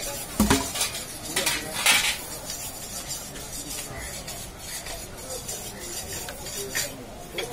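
Scattered metallic clinks and taps of butcher's knives as goat meat is trimmed by hand, the loudest two near the start, over steady street background noise.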